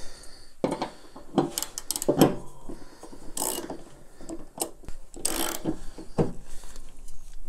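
Hand socket ratchet clicking in short, irregular strokes as it tightens the bolt that holds the pulley onto a lawn-tractor mower deck spindle.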